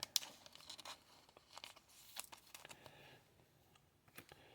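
Faint scattered clicks and rustles of trading cards being handled and slid against each other, busiest in the first three seconds.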